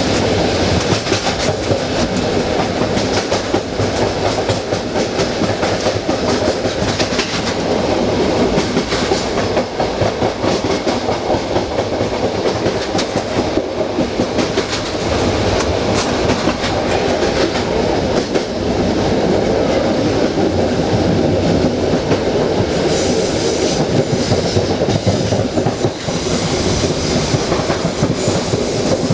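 Passenger train running on jointed track, heard from its rear cab: a steady rumble of wheels on rail with the clickety-clack of rail joints. From about three quarters of the way in, a high wheel squeal comes and goes as the train takes a curve.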